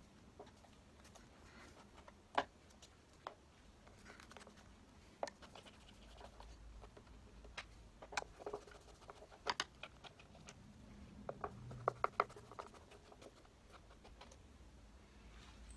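Scattered light clicks and scrapes of a slotted screwdriver turning old screws out of a paint-clogged door hinge, a few single ticks and then small clusters of quick clicks.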